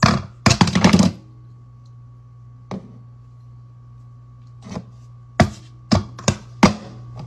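A series of sharp hand strikes: a quick cluster in the first second, a single one a little before the middle, then several more spaced over the last couple of seconds. A steady low hum runs underneath.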